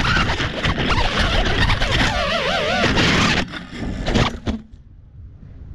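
FPV quadcopter crashing into a tree: its propellers chop and clatter against the branches in a rapid run of knocks while the motor whine wavers up and down in pitch. After a last few knocks the motors cut out about four and a half seconds in.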